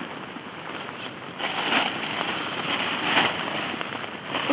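Black plastic bag rustling and crinkling close to the microphone as it is handled by hand, in short bursts starting about a second and a half in, over a steady hiss of light rain.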